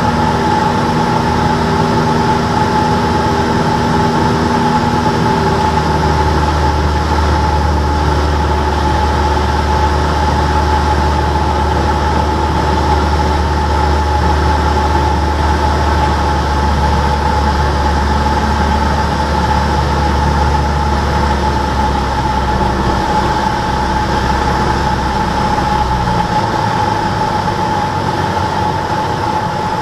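Cessna 172's piston engine and propeller droning steadily in flight, heard from inside the cockpit. The low part of the engine note shifts about six seconds in and again near the end.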